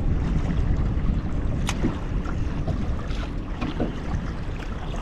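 Wind buffeting the microphone on an open boat: a steady low rumble, with a single faint click a little under two seconds in.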